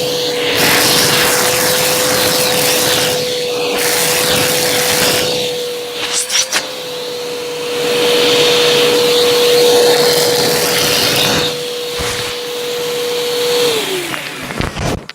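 Bissell vacuum cleaner running with a steady motor whine while its brushroll crunches debris, with a few sharp clicks about six seconds in. Near the end the motor is switched off and the whine falls away as it spins down.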